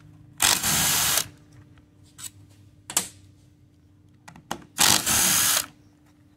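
Cordless power driver with a socket spinning out the two 10 mm bolts that hold the metal keeper over a transmission valve body's torque converter clutch solenoid. There are two short runs, each a little under a second, about four seconds apart, with light clicks of small metal parts being handled between them.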